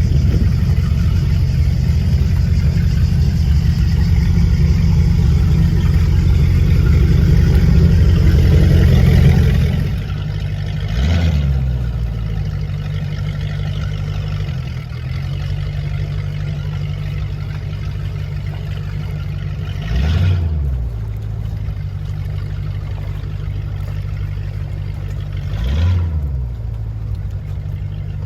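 MerCruiser 496 Mag 8.1-litre V8 of a Baja 232 speedboat running. It runs loud and fast for about ten seconds, then drops back to a steady, lumpy idle. Three short throttle blips follow, several seconds apart, each a quick rise and fall in pitch.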